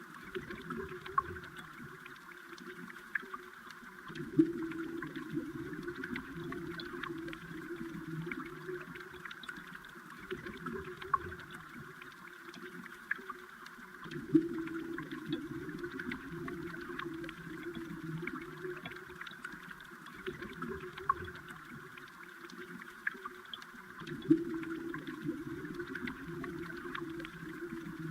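Stream water heard underwater: a steady low gurgling that swells about every ten seconds, with scattered sharp clicks.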